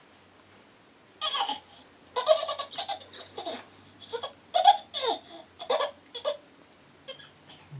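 A baby laughing in a string of short, squealing bursts that begins about a second in, then tails off into a few faint sounds near the end.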